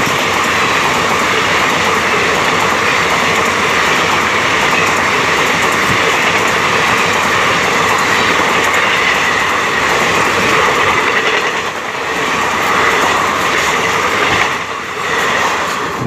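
ICF passenger coaches rushing past at speed close by: a loud, steady roar of steel wheels on the rails with clatter over the rail joints.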